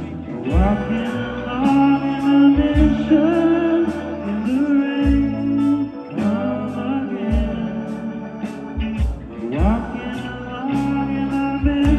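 Live rock band playing electric guitars, electric bass, drums and keyboards, with a voice singing over them.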